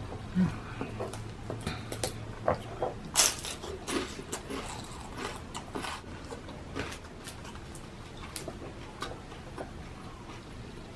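Close-up eating sounds: a person chewing and smacking, with short clicks and knocks. They come thickest in the first six seconds or so, then thin out to a few scattered ones.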